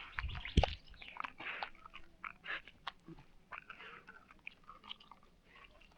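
Irregular close crunching and clicking, with a low thump about half a second in.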